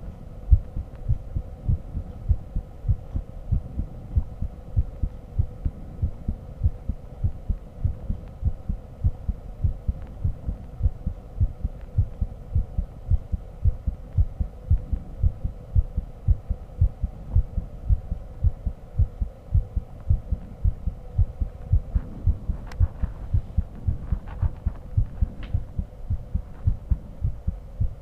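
A human heartbeat picked up by a microphone held to the chest: a regular run of low thuds, over a faint steady hum. A few light rustles of the microphone against the chest come near the end.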